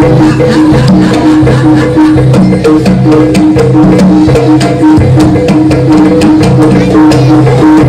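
Loud jaranan gamelan accompaniment: rapid hand-drum strokes over sustained, repeating pitched tones from the ensemble, in a steady driving beat.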